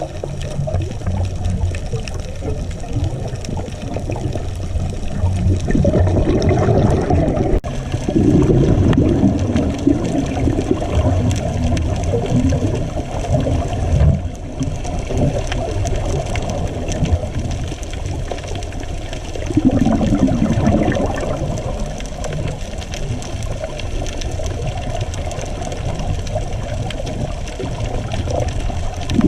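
Muffled underwater noise: a steady low rumble with several stretches of bubbling a few seconds long, as from a scuba diver exhaling through the regulator.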